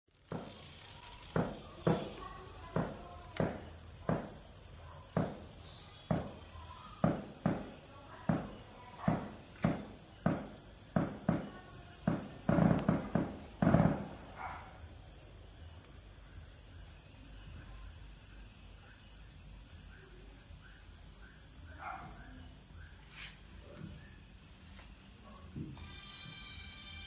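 Night insects, crickets, chirping in a steady, rapid, high-pitched trill. For the first fourteen seconds or so a series of sharp clicks or knocks sounds about once a second over it, loudest near the end of that run.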